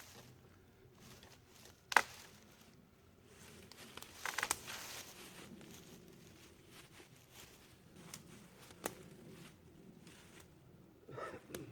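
Camp handling noises: a sharp knock or snap about two seconds in and another near the end, with rustling and crinkling in between.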